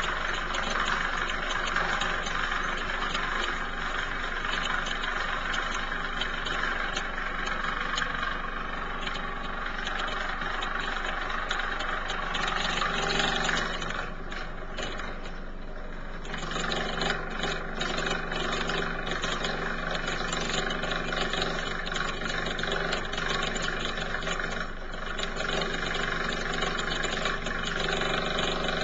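An upstairs washing machine running, heard through the ceiling as a steady machine noise and vibration that shakes the bedroom light fitting. The noise eases briefly about halfway through, then carries on.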